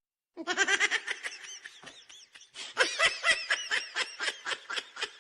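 High-pitched laughter, a rapid giggling run of short pulses that starts about a third of a second in, eases briefly near the middle, then picks up again.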